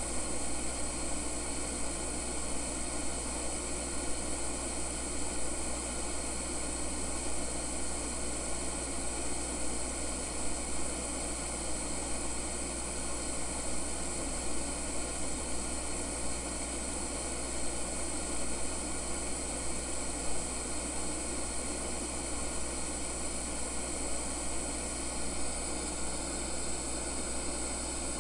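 Radio static from a Fur-Tech CD/cassette boombox's speakers: a steady, even hiss with a bright high edge, unchanging throughout, the crackling noise of a radio with no station coming in.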